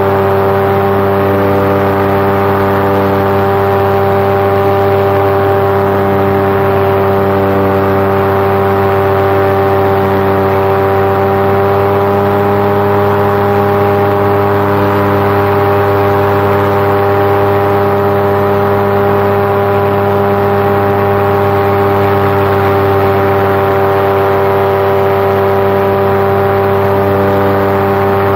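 Paramotor engine and propeller running in flight: a loud, unbroken drone of steady pitch, held at power for a climb.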